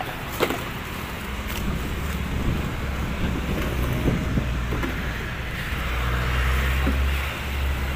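Motor vehicle engine running low and steady, swelling a little about six seconds in, with a few light knocks over it.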